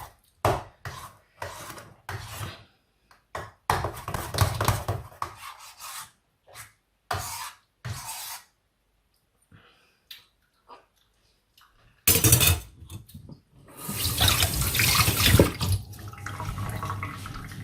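Kitchen tap water running in short on-and-off spurts and splashing into a sink, then running longer and louder in the second half.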